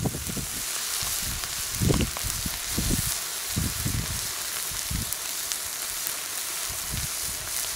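A Coca-Cola can heating in flowing lava hisses and sizzles steadily as steam and Coke squirt from a small hole punched in its top. A few low thumps sound underneath.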